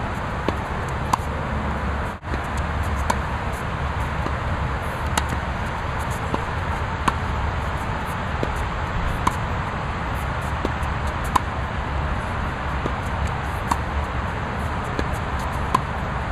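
Tennis ball struck by a racquet during a baseline rally: a sharp pock about every two seconds, over a steady background hiss.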